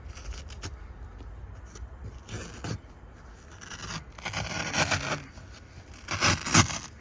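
Scraping and rubbing as dirty old boat carpet and fittings are worked loose by hand, in three short bursts about two, four and six seconds in.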